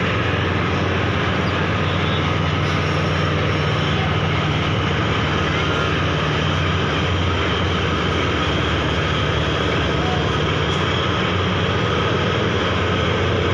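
Diesel engines of large river passenger launches running steadily, a continuous low drone.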